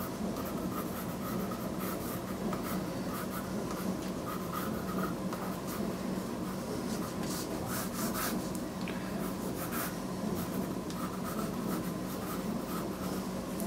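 Graphite pencil scratching on watercolour paper in short sketching strokes, busiest in the middle, over a steady low hum.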